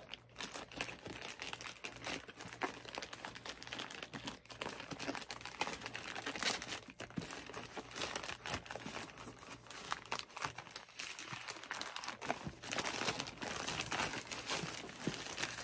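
Plastic mailer bag being ripped open and pulled apart by hand: continuous irregular crinkling and rustling with bits of tearing.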